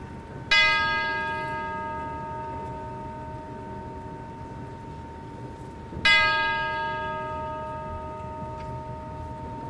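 A large bell struck twice, about five and a half seconds apart, each stroke ringing out and slowly fading.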